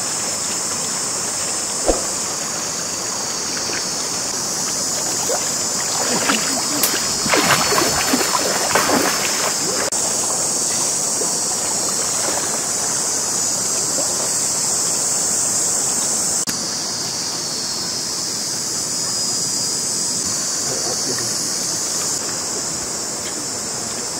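Shallow river water flowing, with a run of splashing about six to nine seconds in. A steady high hiss runs over it throughout.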